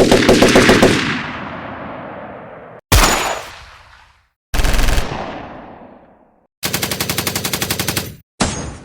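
Automatic gunfire sound effects: a run of separate machine-gun bursts, each a quick string of shots that dies away in a long echoing tail, with short silences between. The fourth burst is longer and fires at an even, rapid rate, then cuts off abruptly. A short final burst comes near the end.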